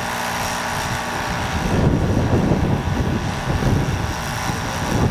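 Compressed-air paint spray gun hissing steadily as it sprays paint onto a wooden door, over a low, uneven rumble that swells in the middle.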